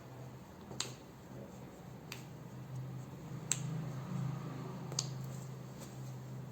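Joints popping during a chiropractic adjustment: four sharp, separate cracks about a second and a half apart, over a steady low hum.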